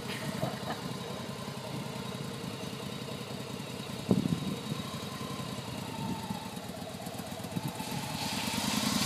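Cruiser motorcycle engine idling steadily, with a single clunk about four seconds in, then rising in revs and getting louder near the end.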